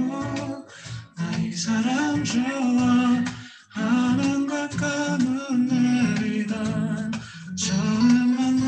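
A song: a singer's voice carrying a melody over low accompaniment, the phrases breaking off briefly about a second in, at about three and a half seconds, and near seven and a half seconds.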